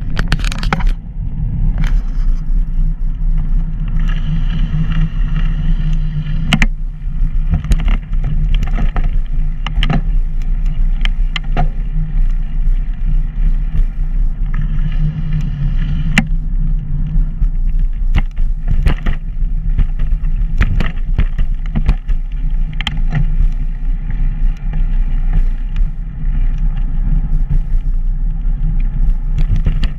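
Steady low rumble of wind and rolling noise from a camera travelling along a paved path, with frequent short clicks and rattles scattered throughout.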